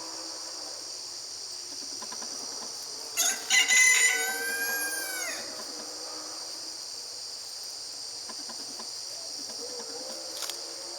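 A rooster crows once, about three seconds in: a crow of about two seconds that ends in a long falling note. Under it is a steady high drone of insects.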